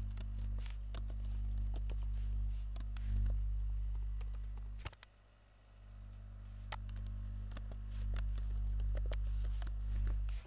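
Computer keyboard being typed on, irregular clicking keystrokes, over a loud low hum that drops out suddenly about five seconds in, swells back, and cuts off at the end.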